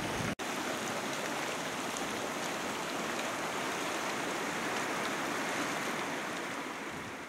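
Strongly acidic hot spring churning and bubbling at its surface: a steady splashing rush of water. It breaks off for an instant about a third of a second in.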